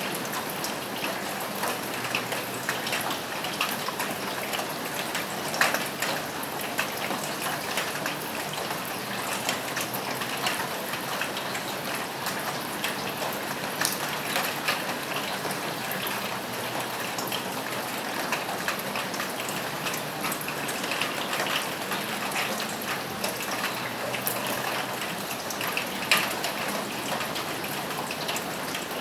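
Steady rain falling on a roof, with individual drops ticking sharply throughout. A couple of louder drop strikes come about six seconds in and near the end.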